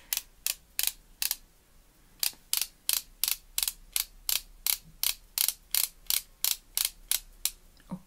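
Ratcheting base of a Physicians Formula brush-tip concealer pen being worked click by click to push product up to the brush, about three dry clicks a second with a short pause about a second and a half in. The pen is new and not yet primed, so it takes many clicks before product reaches the tip.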